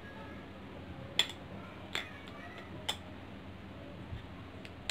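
Makeup brush knocking against a glass bowl of soapy water while it is being washed: a few short sharp taps about a second apart, over a steady faint hiss.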